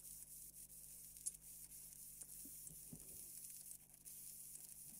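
Near silence: a faint steady hum with a few faint ticks, the clearest about a second and a half in.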